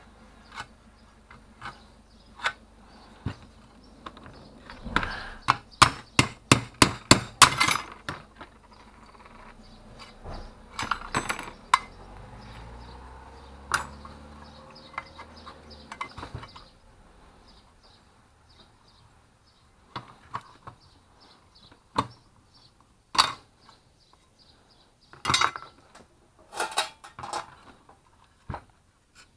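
Metal parts of a dismantled hand-held circular saw clicking and knocking as it is handled on a workbench: a quick run of sharp clicks about five to eight seconds in, then scattered single knocks.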